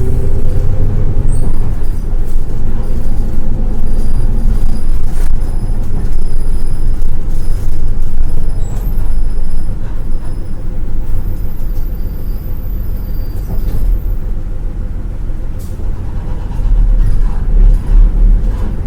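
Bus running with a loud, low rumble, with scattered clicks and rattles. A faint high-pitched whine comes and goes over several seconds in the middle.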